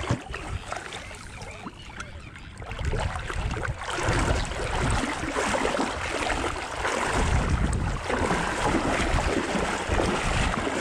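Shallow water sloshing and splashing right at the microphone as it is pushed through the water, with wind buffeting the microphone; it grows louder about four seconds in.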